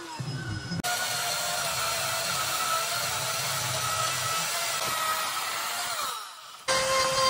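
Chainsaw running with a steady motor whine for about five seconds, then winding down and stopping. After a short pause another power tool starts abruptly near the end.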